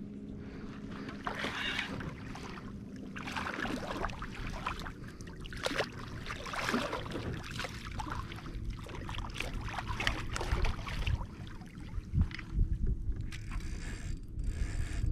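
Water splashing and sloshing beside a kayak as a hooked tarpon swirls at the surface, in irregular washes, with wind rumbling on the microphone and a few low thumps near the end.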